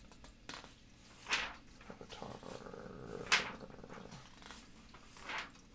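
Pages of a thick glossy catalog being turned by hand: three quick paper swishes, with rustling of the paper between them.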